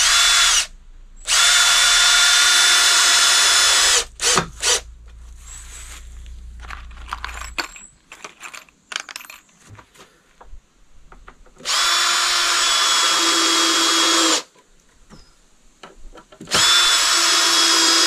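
Cordless drill-driver driving screws into the wooden slats of a crate: several runs of a few seconds each with a steady motor whine, the longest about three seconds. Between the runs come scattered clicks and knocks of boards and screws being handled.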